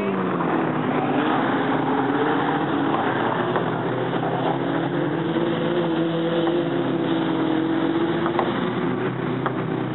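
Engines of several dirt-track stock cars racing, overlapping and rising and falling in pitch as the cars accelerate and pass.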